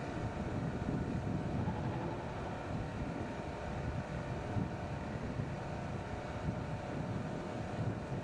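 A field of Suzuki Swift Cup race cars with their engines running on the starting grid, a steady mass of engine sound with no single car standing out.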